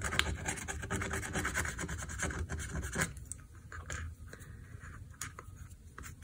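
A pointed stick scraping and rubbing along the edge of a mirror in its frame, taking off excess hot glue. The scratching is steady for about three seconds, then turns fainter with a few small clicks.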